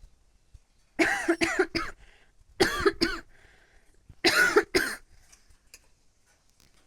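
A woman's smoker's cough while smoking: three fits of two or three coughs each, a second or so apart.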